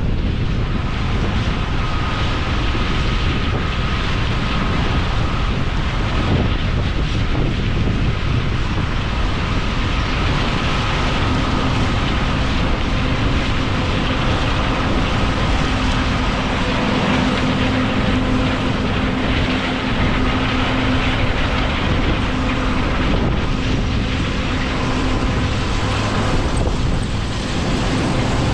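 Heavy farm machinery running steadily under load, a dense, even machine drone with wind on the microphone and faint steady whines; a lower steady tone comes in about a third of the way through.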